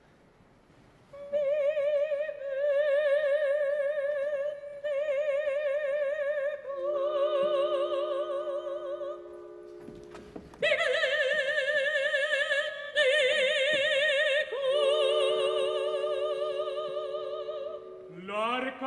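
Operatic woman's voice, likely a mezzo-soprano, holding long high notes with a wide vibrato over sustained orchestral chords. It starts after a second of near silence, and the sound grows louder and fuller about ten seconds in.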